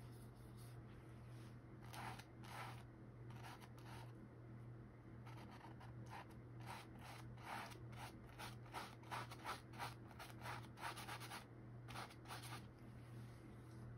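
Paintbrush scratching and dabbing on a canvas on an easel: a few short strokes, then a quick run of them that is densest from about eight to eleven seconds in, over a steady low hum.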